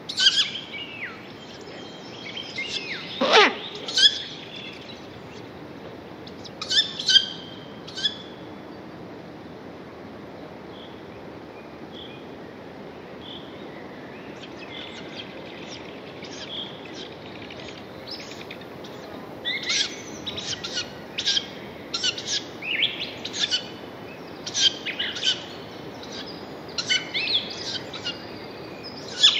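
Wild birds chirping and calling in scattered bursts over a steady background hiss. Calling is sparse with a few soft notes in the middle and grows dense in the second half. One loud sound slides steeply down in pitch about three seconds in.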